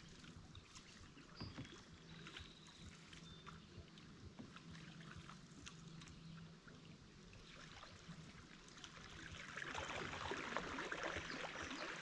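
Canoe paddling on a lake: faint splashes of paddle strokes and water lapping, growing louder near the end.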